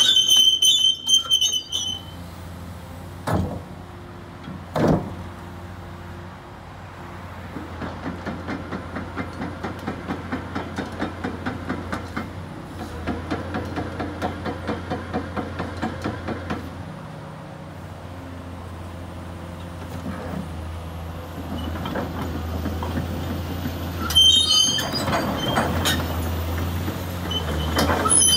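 CAT 345D crawler excavator's diesel engine running while the machine slews and travels on concrete. Its steel tracks clank rhythmically, about three times a second, through the middle, and give sharp metallic squeals near the start and again near the end, with a couple of knocks early on.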